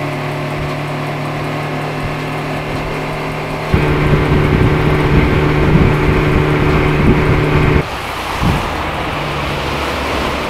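Mercury FourStroke outboard motor running at planing speed, a steady engine note over the rush of the wake and wind on the microphone. It turns louder and harsher about four seconds in and drops back near eight seconds.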